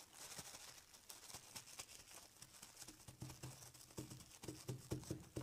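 Faint crinkling of plastic wrap and soft patting as fingers press scrunched saran wrap onto a wet watercolour painting. From about three seconds in the pats come as a quick run, roughly four a second.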